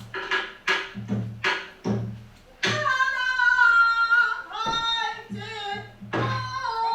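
Pansori singing accompanied by a buk barrel drum. A run of drum strokes comes first, then from about three seconds in a long, held, wavering sung note, with further drum strokes near the end.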